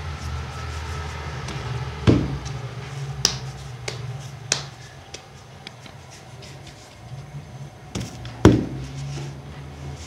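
A low steady hum with a few sharp knocks and taps; the loudest, with a dull thud, come about two seconds in and near the end.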